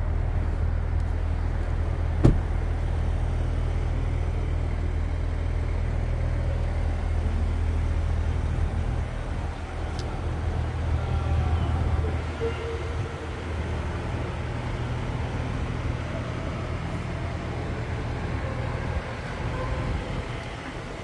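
Haval H6 GT running with a steady low engine hum, which drops in level about twelve seconds in. A single sharp click sounds about two seconds in.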